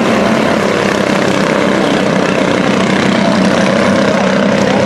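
Engines of several mini stock pickup race trucks running at speed around an oval track, a steady, loud, unbroken drone.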